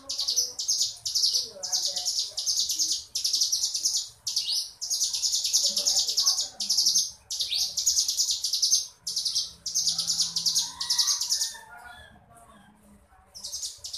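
Ciblek gunung, a small prinia, singing its 'ngebren' song: long runs of very rapid, high trilled notes, phrase after phrase with short breaks. The song falls away about twelve seconds in and picks up again near the end.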